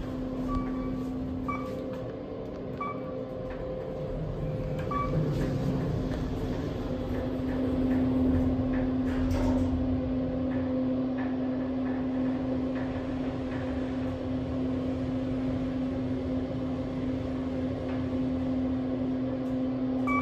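Kone traction elevator cab running, a steady hum throughout that grows somewhat louder from about seven seconds in as the car travels. Four short beeps in the first five seconds and one more at the very end.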